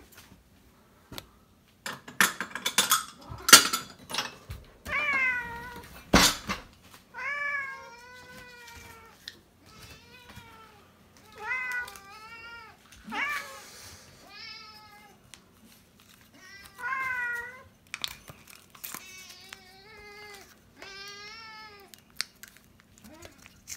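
Domestic cats meowing over and over, about a dozen rising-and-falling meows, begging for food at feeding time. A few sharp knocks and clicks come near the start, the loudest about six seconds in.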